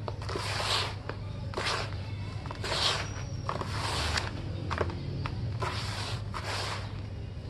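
Hands crumbling and stirring dry, powdery red dirt in a tub: grainy rustling and hissing surges about once a second as handfuls are squeezed and let fall, with small sharp clicks of clumps breaking.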